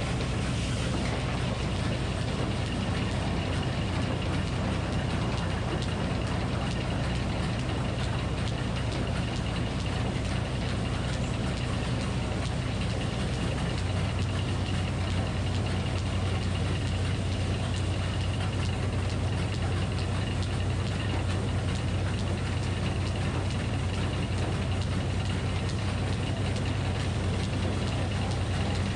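Minneapolis-Moline HEB 605 cubic inch engine running the Frick circular sawmill at a steady speed, a low even drone that grows a little stronger about halfway through, with a faint high steady tone above it.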